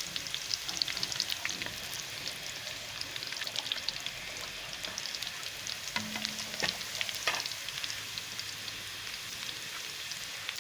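Onions frying in hot oil in a karahi: a steady sizzle full of fine crackling as they brown, with a couple of sharper clicks a little past halfway.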